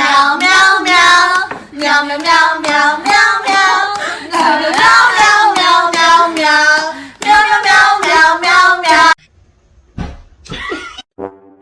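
A high-pitched voice singing a tune in short phrases, stopping abruptly about nine seconds in.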